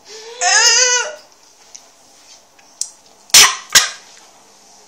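A girl's loud, wavering, high-pitched cry lasting about a second, a pained reaction to an intensely sour sweet, followed a couple of seconds later by two short, sharp bursts about half a second apart.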